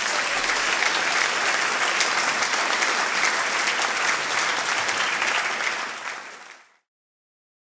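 Audience applauding, a dense clapping that fades out about six seconds in.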